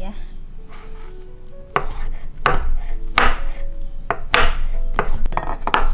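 Chef's knife cutting through a portobello mushroom and knocking on a wooden cutting board: a few separate chops, then several in quick succession near the end.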